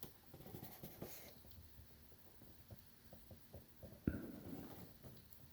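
Faint handling noises from a headset's retail packaging: scattered light clicks and taps, with a brief rustle about four seconds in.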